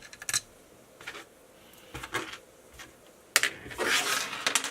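RC car parts being handled on a workbench: scattered light clicks and knocks, then a sharp knock about three and a half seconds in, followed by about a second of rustling and scraping.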